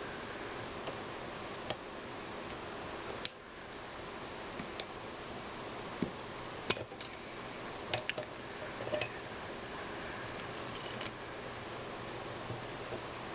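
Irregular sharp clicks and light metallic taps, spaced a second or more apart, from small hand tools and the parts of a half-inch ratchet being handled during reassembly.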